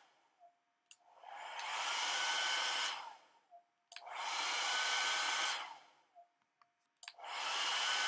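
Hand-held hair dryer switched on and off three times in a row: each time a click, then the motor spins up with a rising whine into a steady rush of air for about two seconds before cutting off.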